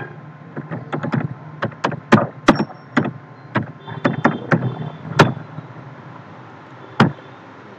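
Computer keyboard keys clicking in a quick, irregular run as a name is typed, for about five seconds, then a single click near the end. A faint low hum lies underneath.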